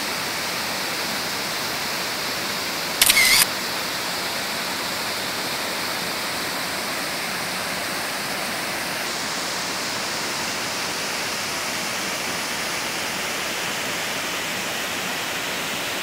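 Waterfall pouring over rock: a steady rush of falling water. About three seconds in there is a brief, louder burst of high hiss lasting about half a second.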